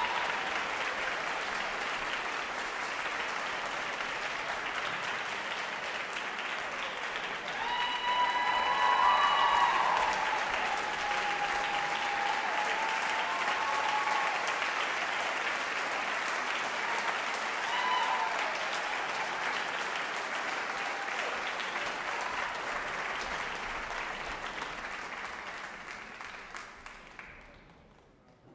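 Audience applauding steadily after a string quartet performance, with a few voices cheering over the applause about eight seconds in and again later. The applause dies away near the end.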